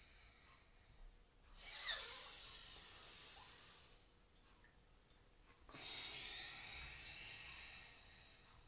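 A woman's slow, audible breaths during a cat-cow yoga stretch: two long, breathy breaths, the first starting about one and a half seconds in and the second just past halfway.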